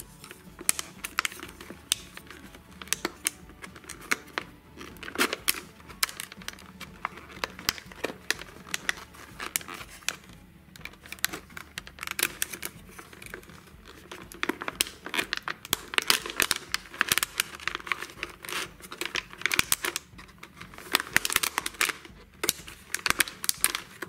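Thin plastic water bottle crinkling and crackling in irregular bursts as it is squeezed and a wooden spoon is pushed through holes poked in its sides.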